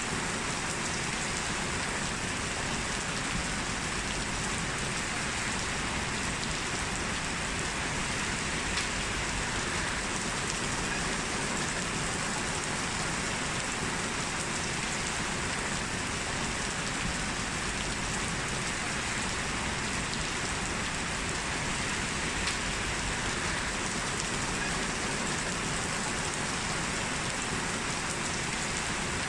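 Heavy rain falling steadily, a dense even hiss of rain hitting the ground with scattered individual drop splashes.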